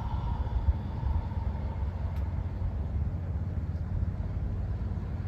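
Steady low outdoor rumble, with a faint held tone in the first couple of seconds.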